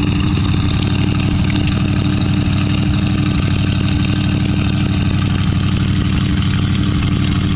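Big-block V8 of a 1983 Ford F-350 pickup idling steadily, with an even, regular pulse.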